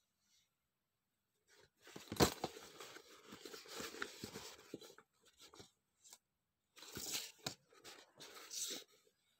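Stiff waxed canvas of a Filson Tin Cloth travel kit crackling and rustling as hands squeeze and crumple it, in two spells, with a sharp crack about two seconds in.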